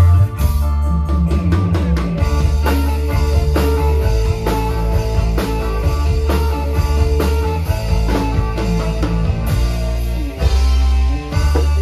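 A live dangdut band playing an instrumental through a loud PA: drum kit and electric guitars over a heavy, booming bass, with drum hits at a regular beat.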